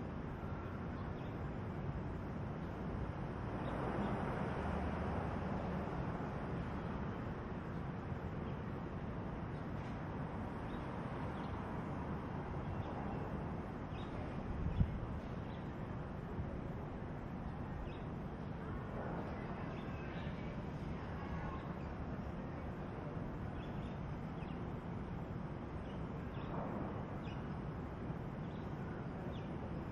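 Outdoor town-centre ambience: a steady background hum of distant traffic that swells for a few seconds about four seconds in, with faint bird chirps. A single short sharp knock sounds about halfway through.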